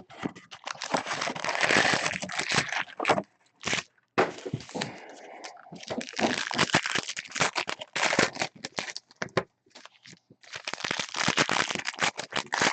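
Trading-card pack wrappers being torn open and crinkled, with sharp crackling in several spells and short pauses between them.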